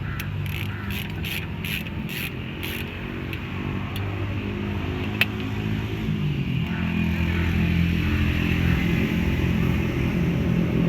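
Ratchet with a 17 mm socket clicking as it is swung back and forth on a brake caliper bolt, about three clicks a second over the first few seconds, then one sharp click about five seconds in. A steady low engine hum runs underneath and grows louder in the second half.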